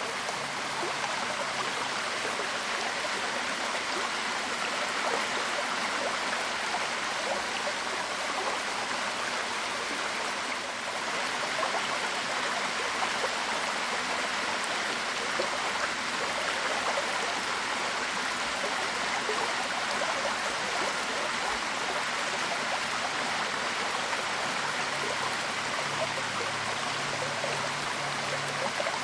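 Waterfall: water falling and rushing over rocks in a steady, even splashing rush.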